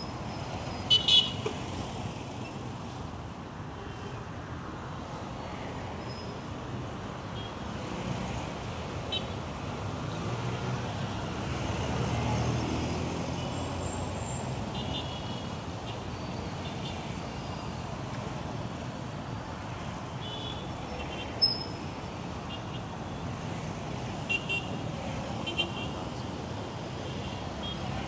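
Busy street traffic of motorcycle taxis and cars: a steady rumble of engines and tyres that swells about halfway through as vehicles pass close, with several short horn toots scattered through it.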